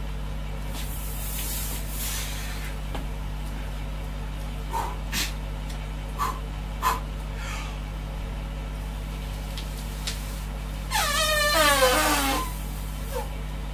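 A lifter's strained, pitched groan falling in pitch, forced out while grinding up from the bottom of a 150 kg barbell back squat. Earlier come a breathy inhale and a few faint clicks, over a steady low hum.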